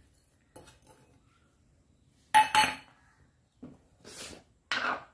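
Small steel kitchen bowl clinking twice in quick succession with a brief metallic ring, then two short scraping sounds near the end as ingredients are tipped onto mashed potato.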